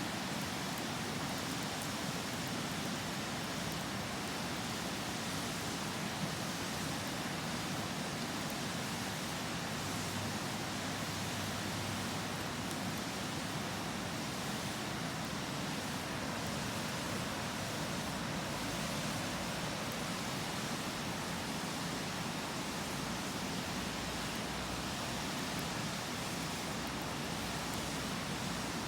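Steady rush of a river flowing, with faint crackles from a wood campfire.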